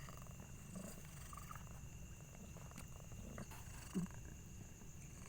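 Mother cat purring steadily, a low continuous rumble, while in labour. There is one short louder sound about four seconds in.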